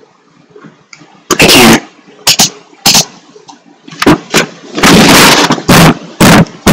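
Harsh, heavily distorted blasts of noise from an overdriven microphone held against the face, clipping at full loudness. After a quiet first second there is one big blast, a few short bursts, then near-continuous distorted noise from about four seconds in.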